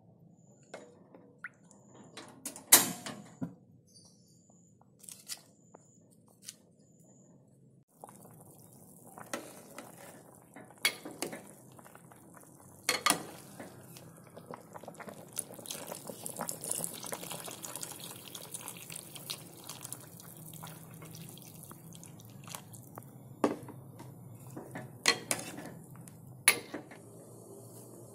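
Chicken pieces boiling in broth in a pot, bubbling and hissing steadily from about eight seconds in, with a metal ladle stirring and now and then clinking against the pot. The loudest sound is a sharp clink about three seconds in.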